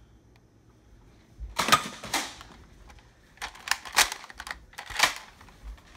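Nerf blasters in a close-range dart fight: an irregular run of loud, sharp clacks and snaps from blasters being fired and primed, starting about a second and a half in.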